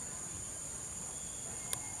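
Steady, high-pitched insect drone, like crickets or cicadas, with one sharp click near the end.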